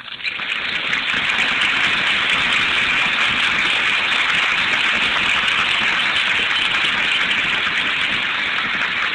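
Large audience applauding steadily, with no voices standing out.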